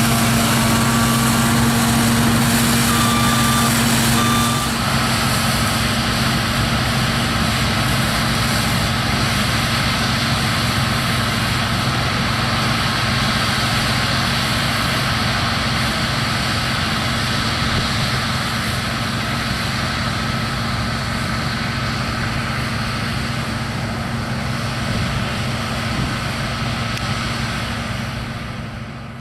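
New Holland TC 56 combine harvester running with a steady drone of engine and machinery and a steady whine, with a few short beeps in the first few seconds. The sound fades out near the end.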